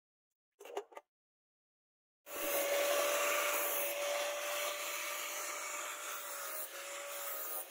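Two brief splashes of water near the start. About two seconds in, a handheld angle grinder with an abrasive disc starts grinding the steel knife blade: a steady motor whine over a harsh grinding noise that runs on.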